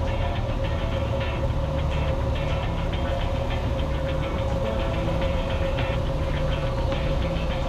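Cessna 172's piston engine throttled back for landing, a steady drone with a constant whine on top, heard through the cockpit intercom as the plane floats over the runway in the flare.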